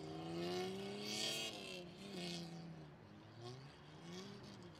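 Mercedes-Benz Ponton sedan's engine revving hard under wheelspin. It climbs in pitch to a peak about a second and a half in, drops off, then revs up again near the end. At the first peak there is a hiss of tyres spinning on dry dirt and grass.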